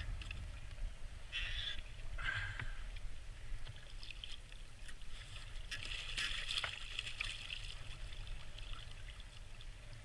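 Hooked juvenile seagull thrashing and beating its wings on the water beside a kayak, with splashing that comes in short bursts early on and thickens into a longer spell of rapid splashes in the middle. A steady low rumble of wind on the microphone runs underneath.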